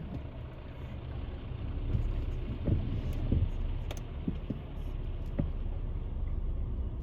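A car's engine and road noise, heard from inside the cabin as a low, steady rumble, with a few short soft knocks between about two and five and a half seconds in.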